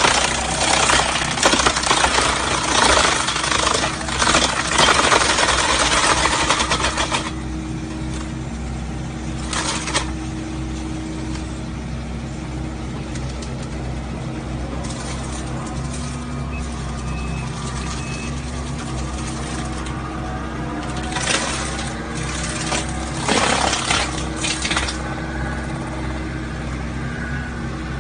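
Excavator-mounted wood chipper crackling as it chews through wood for about the first seven seconds, over the excavator's diesel engine running steadily. After that the engine hum carries on alone, broken by a short burst of chipping about ten seconds in and a few more past the twenty-second mark.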